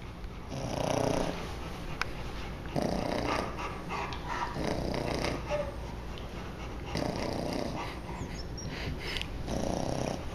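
English Bulldog snoring in its sleep, about five rasping breaths repeating roughly every two seconds.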